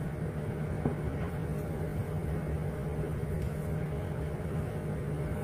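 Steady low background hum, with faint rustling of a denim shirt as its sleeves are rolled up.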